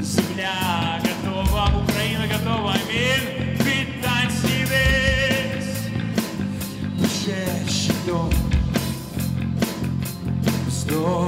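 Live worship band playing a rock song: a man singing phrases with vibrato over electric guitars, bass, keyboard and a drum kit keeping a steady beat.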